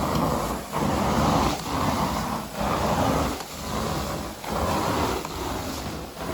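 Carpet-cleaning equipment worked across carpet in repeated strokes: a steady rushing noise that dips briefly about once a second.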